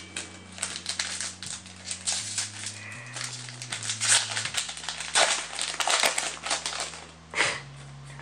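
Foil booster-pack wrappers crinkling and trading cards rustling as Yu-Gi-Oh packs are opened and handled, in a run of short irregular crackles. Background music with low bass notes that change every second or so plays underneath.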